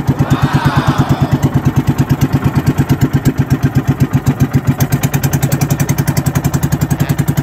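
Pump boat's small single-cylinder gasoline engine running steadily, with an even pulsing of about ten beats a second.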